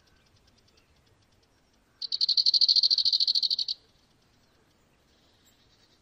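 A loud, high-pitched, fast-pulsed trill from a small calling animal starts about two seconds in and lasts under two seconds. Faint, steady, high chirring of the same kind runs underneath.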